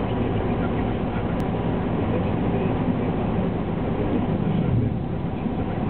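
Steady engine and tyre road noise heard from inside a car's cabin while driving, with a brief low swell near the end.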